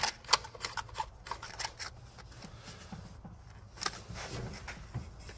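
Brass hose coupling being screwed by hand onto a freeze dryer's vacuum pump: a quick run of small metallic clicks and scrapes in the first two seconds, then a few scattered light knocks.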